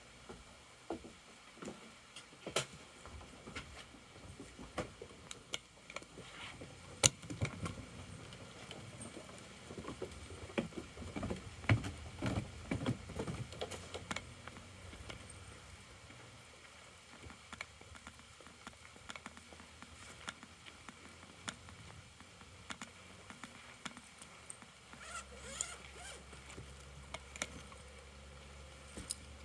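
Handling noise from a handheld camera carried outdoors: scattered clicks and knocks, with a run of low thumps from footsteps in the middle. Near the end, soft rustling as a suitcase is opened on the grass.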